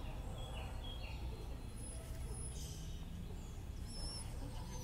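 Small woodland birds singing, short thin whistled notes scattered through, over a steady low rumble.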